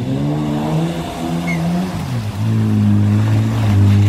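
Off-road 4x4's engine revving under load as it drives through deep mud. The pitch rises and falls for the first two seconds, dips briefly, then holds high and steady and grows louder.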